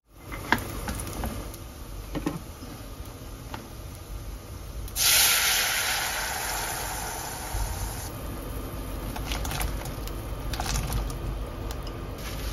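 Boiling water poured from a kettle into a hot pot: a loud hiss that starts about five seconds in and lasts about three seconds, then softens to a steady low noise. A few light clinks and knocks of cookware come before and after it.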